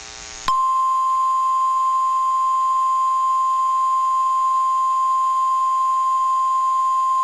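After a brief buzz, a single steady tone near 1 kHz comes on about half a second in and holds unchanged. It is the NOAA Weather Radio warning alarm tone, which signals that a severe thunderstorm warning is about to be read.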